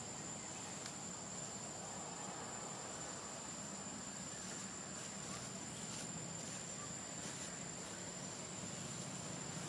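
Insects droning steadily outdoors, a continuous high-pitched whine over a low background hiss.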